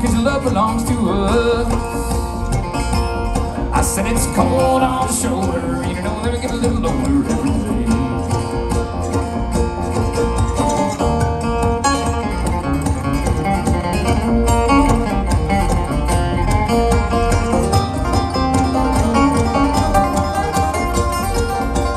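A bluegrass band playing live on banjo, mandolin and acoustic guitar, a steady up-tempo tune with quick picked notes throughout.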